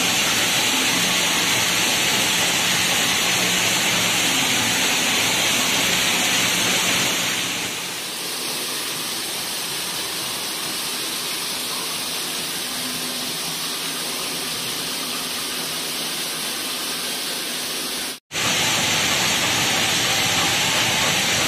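Oil mill machinery running while crushing dried coconut (copra) into oil: a loud, steady mechanical noise with a faint low hum. It drops a little in level about eight seconds in and breaks off for an instant near the end before resuming.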